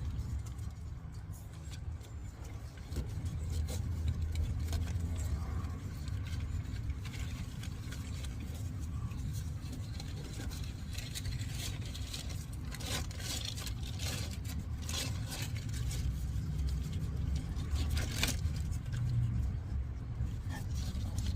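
Scratchy rustling and clicking from handling and wrapping fiberglass exhaust repair tape around an exhaust pipe, busiest in the second half, over a steady low rumble.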